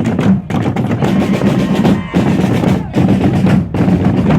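Drums beating a fast, steady rhythm, with bass and snare drums together, as from a marching band's drum section.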